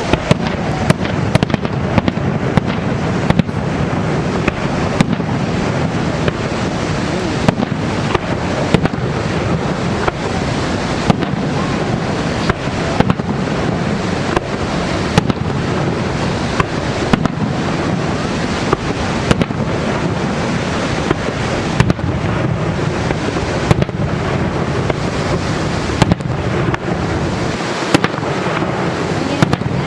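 Fireworks display: a long run of sharp bangs and pops at irregular intervals, often one or two a second, over the steady rushing roar of Niagara Falls.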